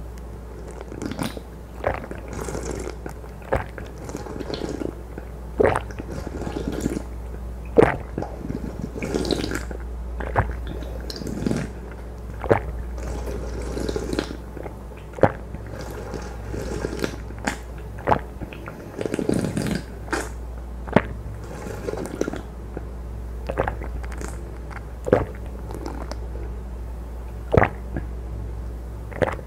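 Close-miked eating straight from a hollowed half watermelon of watermelon punch: irregular crisp bites, wet slurping and chewing of juicy watermelon flesh, a few sharp clicks a second. A steady low hum runs underneath.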